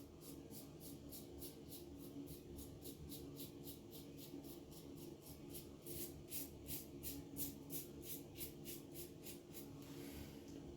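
Vintage Gillette Black Tip safety razor with a Feather blade scraping through a day's stubble on lathered skin, in short quick strokes of about four a second.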